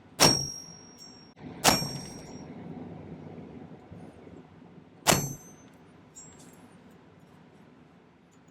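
Dead blow hammer striking a steel asterisk design stamp into sterling silver wire, stamping a texture. There are three sharp metallic strikes, each with a brief high ring: two about a second and a half apart, then a third a few seconds later.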